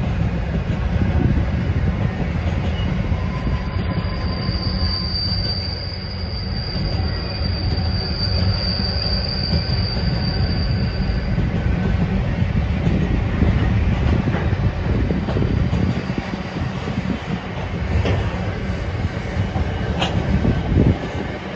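Container wagons of a long intermodal freight train rolling past with a steady low rumble and wheel clatter. A high, steady wheel squeal sets in a few seconds in and lasts about seven seconds. A couple of sharp clicks come near the end.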